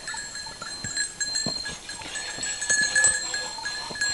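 A penned flock of sheep during hand-milking: several steady high ringing tones, like sheep bells, run throughout, with scattered clicks and knocks.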